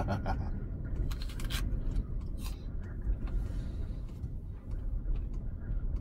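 High wind buffeting a parked van, heard from inside the cabin as a steady low rumble, with a short cluster of sharp clicks about a second in.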